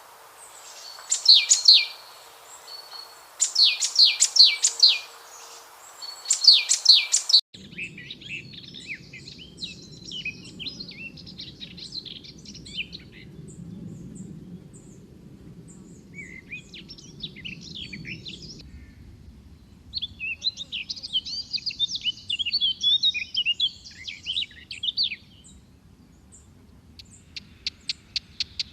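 A songbird sings short, loud phrases of quick downward-sweeping notes, repeated every couple of seconds. About a third of the way in the recording changes abruptly to several birds twittering and chattering over a low background hiss. Near the end a fast, even run of ticks begins.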